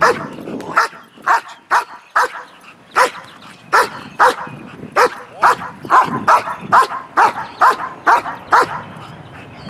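Large black dog barking over and over, short sharp barks about every half second, excited at being kept back from its ball.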